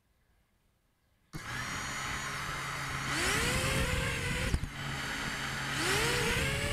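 Blade Vortex 250 Pro racing quadcopter's motors and propellers spinning up while it sits on the ground. The motors start with a steady whir about a second and a half in, then rise in pitch twice as the throttle is raised, dropping briefly in between.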